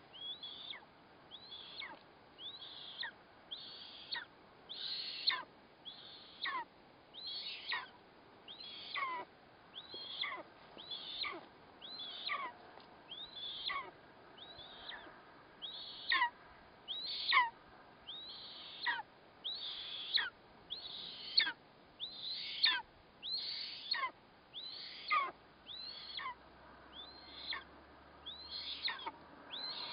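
Eastern imperial eagle chick calling during a feeding, a call about once a second. Each call is a high, thin note that slides sharply downward.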